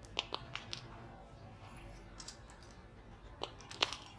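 Scattered sharp clicks and ticks at a charcoal melting furnace as a crucible of molten metal is held in the burning charcoal with tongs: a quick run of clicks in the first second and two louder ones near the end.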